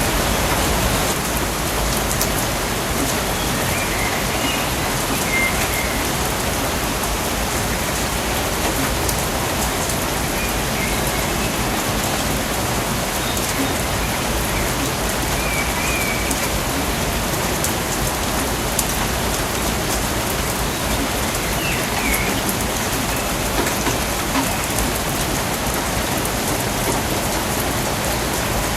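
Steady, even rain falling in a rainforest, with a few faint, short chirps now and then.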